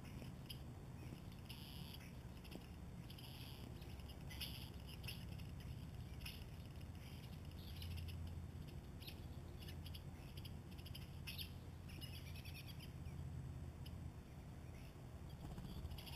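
Short, squeaky bird chirps repeating irregularly over a faint, steady low rumble.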